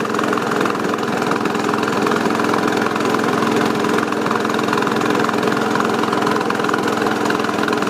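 John Deere 214 garden tractor's single-cylinder Kohler engine running steadily while warming up. The owner thinks it needs new valves and a new exhaust pipe.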